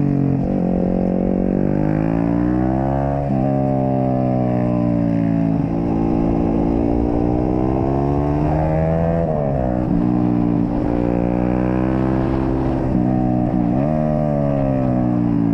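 Yamaha sport bike's engine heard from onboard at speed, its revs repeatedly climbing and then dropping, with sudden jumps in pitch at several points as the rider works the throttle and gears through the corners.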